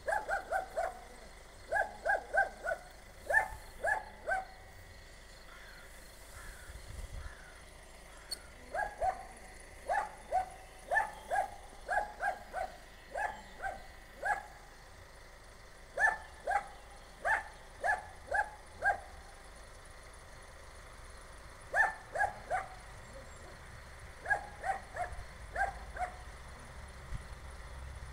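A dog barking repeatedly in quick runs of three to five barks, with short pauses between the runs.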